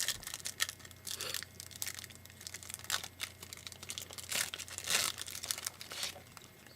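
Trading-card packaging crinkling and crackling as it is handled, in repeated bursts that stop shortly before the end.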